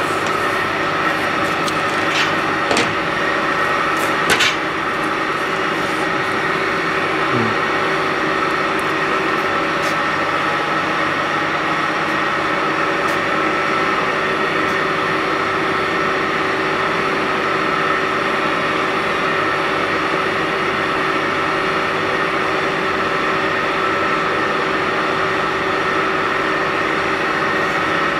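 CO2 laser engraving machine running while it cuts acrylic: a steady mechanical hum with a few sharp clicks in the first few seconds.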